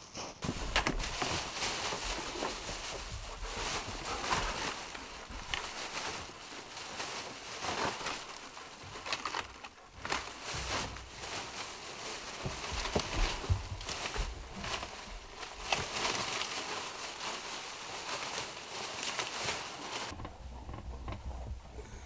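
A plastic bag rustling and crinkling as dry dead pine twigs clatter and crackle out of it into a cardboard box, with many small clicks. The sound drops away near the end.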